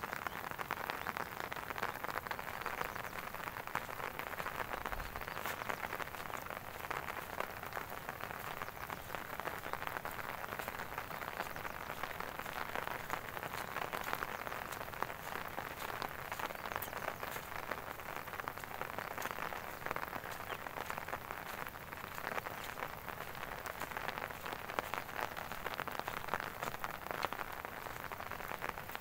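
Steady rain falling, a dense, even patter that holds at the same level throughout.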